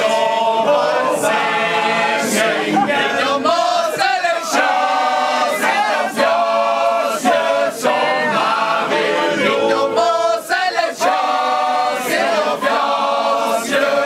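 A group of men singing loudly together in chorus.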